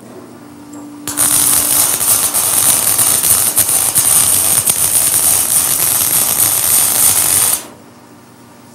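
MIG (wire-feed) arc welding on a steel tube frame: a steady, loud, crackling sizzle that starts abruptly about a second in and cuts off about a second before the end.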